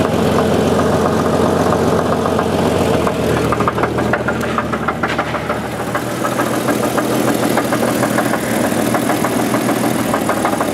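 1988 Jeep Cherokee's Renix 4.0-litre straight-six idling smoothly with a steady, rapid knock from the engine, which the owner takes for piston slap rather than a rod knock.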